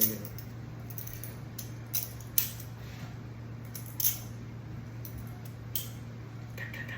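Balisong (butterfly knife) flipped by hand, its handles and blade clacking against each other in about five sharp, irregularly spaced metallic clicks.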